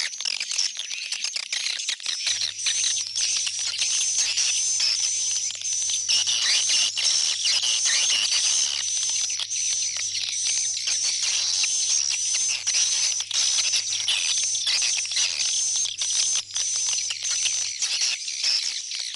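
Edible-nest swiftlet calls: a dense, unbroken chorus of rapid high chirps, twitters and clicks, the lure sound used to call swiftlets home to a swiftlet house. A faint low hum runs beneath it from about two seconds in until near the end.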